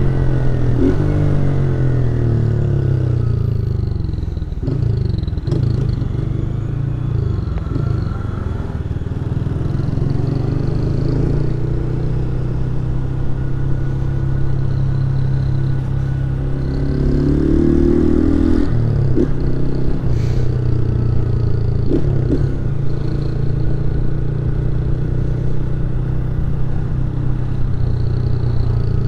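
Honda 160 motorcycle's single-cylinder engine running while riding. Its pitch drops off early on, holds steady for a long stretch, then climbs again as the throttle opens, with a few short knocks along the way.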